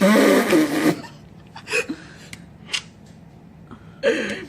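Recorded punching sound effect played back: heavy blunt hits, made by smacking a phone book or a slab of meat. A loud hit in the first second, two short sharp ones around two and three seconds in, and another loud one near the end.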